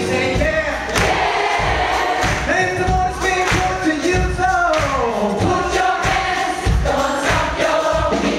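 Large gospel choir singing live with a band over a steady drum beat. About halfway through, the melody makes a long slide down in pitch.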